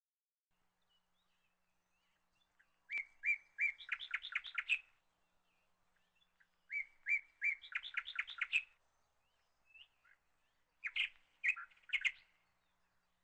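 A small bird singing three short phrases a few seconds apart, each a few separate chirps followed by a quick run of notes.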